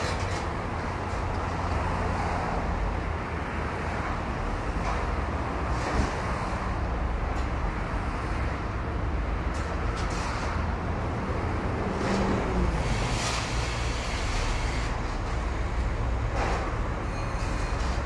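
Steady low hum and rumble around a parked electric railcar standing with its equipment running, mixed with road traffic. There are a few faint clicks and a short falling tone about twelve seconds in.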